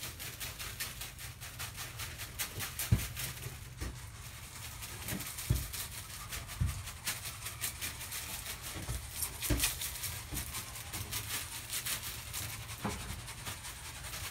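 Gritty barn lime being tossed from a cup onto a shed floor, with scattered thumps and knocks from boots and handling.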